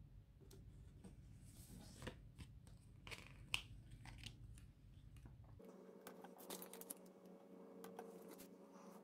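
Faint handling of paper stickers and planner pages: soft rustling and scattered light clicks as stickers are peeled from a sheet and pressed down, with one sharper tap about three and a half seconds in.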